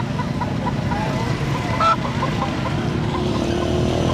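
Roadside market din: the steady rumble of motor traffic, with a run of short repeated bird or fowl calls through the first two seconds. Near the end a vehicle's engine grows louder and rises in pitch.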